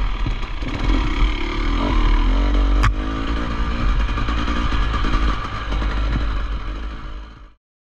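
Off-road motorcycle engine running and revving up and down, with a heavy low rumble beneath it and a sharp knock about three seconds in. The sound fades and then cuts off suddenly near the end.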